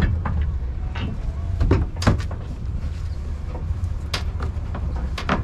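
Scattered knocks and clunks of gear and rugs being handled, about five sharp hits, over a steady low rumble.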